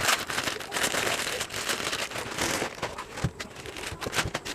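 Plastic packaging crackling and rustling, with many quick clicks, as a speaker set is unpacked from its box.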